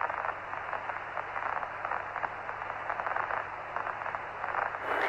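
Radio static on the Apollo 11 voice-loop recording between transmissions: a steady, muffled hiss with fine crackling and a low hum underneath.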